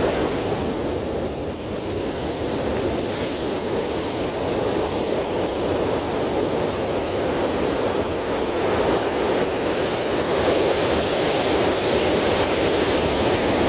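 Ocean surf washing steadily onto a sandy beach, with wind on the microphone.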